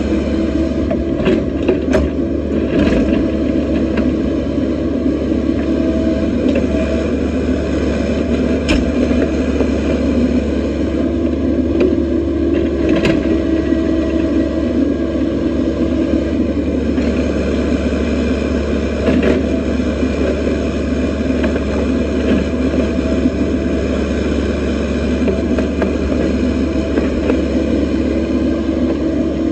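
Excavator's diesel engine running steadily while digging, with a few short sharp knocks.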